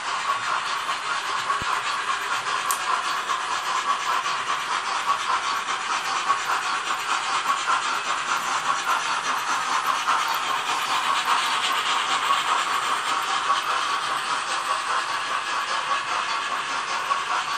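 Sound-equipped HO-scale model steam locomotives running with their sound systems on: a steady stream of steam chuffs and hiss from the models' speakers.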